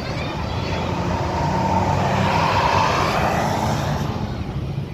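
A large vehicle, most likely a bus, driving past with engine rumble and tyre noise. The sound swells to its loudest a little past the middle, then fades away.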